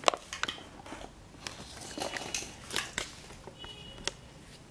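Scattered light clicks and knocks of plastic toy doctor-kit pieces being picked up and handled.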